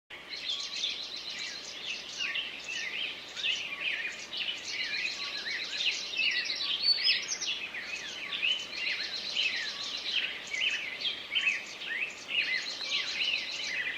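Many songbirds singing at once: a dense, continuous chorus of overlapping chirps, quick up-and-down whistles and rapid trills of repeated notes.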